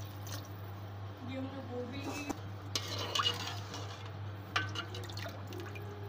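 Metal ladle stirring a watery curry in an aluminium pot, with scattered scrapes and clinks against the pot.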